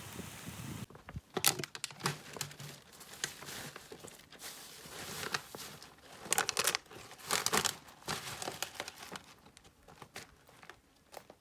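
Crinkling and crackling: a run of irregular clicks and short rustles, some sharp and loud, others faint.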